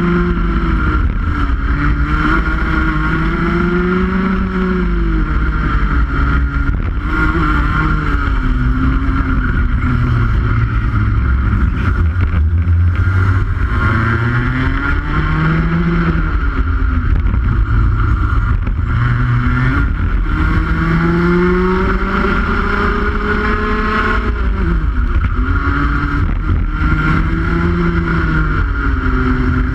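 Rotax two-stroke kart engine at race pace, heard onboard: the revs climb steadily under acceleration and then drop, sometimes sharply, off the throttle for corners, over and over.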